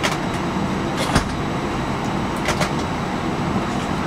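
Airbus A319 cabin noise while taxiing: a steady engine and airflow rumble, with a few sharp knocks and rattles, the loudest about a second in.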